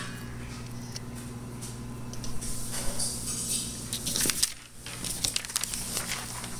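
Sheets of drawing paper rustling and being handled close to the microphone, with scattered clicks and scrapes, over a steady low hum.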